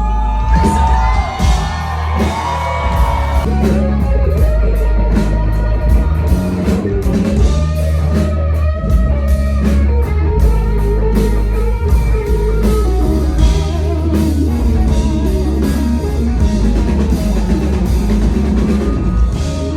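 Rock music with guitar, a drum kit and a singing voice, loud and continuous.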